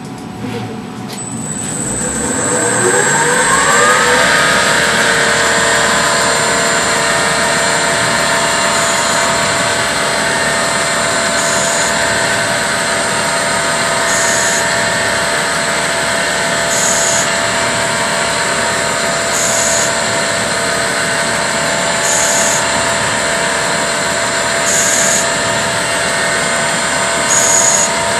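CNC lathe spindle spinning up, its whine rising over the first few seconds, then running steadily while cutting an internal M17x1 thread. A high-pitched tone changes briefly about every two and a half seconds, with each repeated threading pass.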